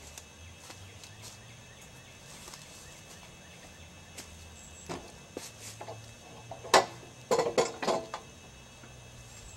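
Footsteps on dry leaf litter, then, near the end, a quick cluster of sharp metallic clanks and rattles with short ringing as the steel frame of a homemade portable sawmill is handled.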